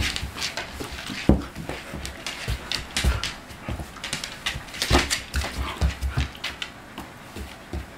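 A Siberian Husky and a Czechoslovakian wolfdog play-fighting: irregular scuffles and thumps of paws and bodies on a wooden floor, with panting and short whines.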